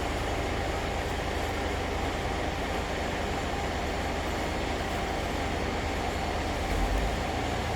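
A large engine running steadily at constant speed, with a low rumble that swells slightly near the end.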